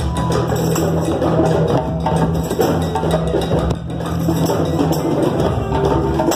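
Drum circle: many hand drums and other percussion playing together in a dense, busy rhythm, with sharp wood-block-like clicks among the drum strokes. A steady low drone runs under it and drops out about two-thirds of the way through.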